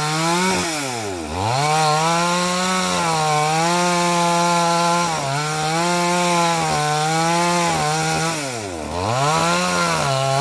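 Chainsaw running at high speed while cutting through a durian log. Its engine note drops sharply under load twice, about a second in and near the end, then picks back up, as the chain bogs in the cut.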